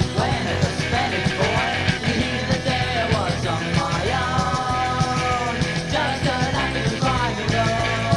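Rock music with a steady drum beat and a wavering melody line over it.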